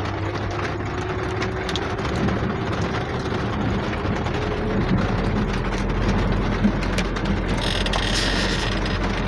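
Heavy rain falling, a steady noisy hiss with scattered faint ticks, over a steady low hum.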